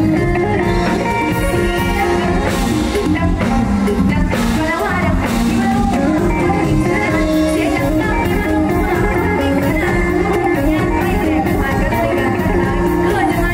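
A teenage girl sings into a handheld microphone over amplified live band music with electric guitar and drum kit, heard through the stage PA during a sound check.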